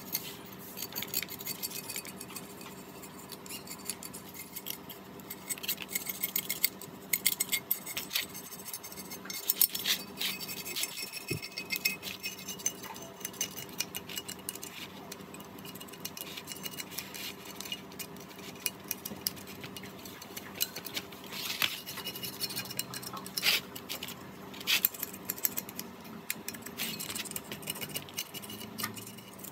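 Light metallic clicks, taps and clinks of hand tools and small metal engine parts being handled, irregular throughout, over a faint steady hum.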